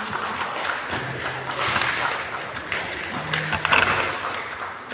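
Stage noise between songs: a couple of short low electric bass guitar notes, with taps and thumps of gear handling over a murmur of voices in the hall.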